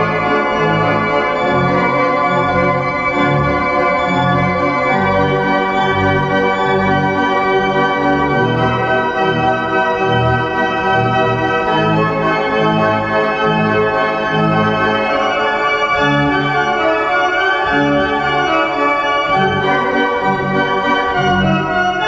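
Organ played on the manuals: a slow, gentle piece in G major, with sustained chords over a bass line that changes note every second or so.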